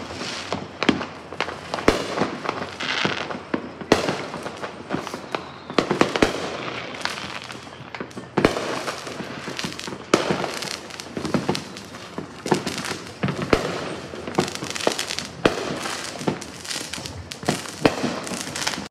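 Many fireworks going off around the neighbourhood at once: irregular sharp bangs, sometimes several a second, over continuous crackling and popping.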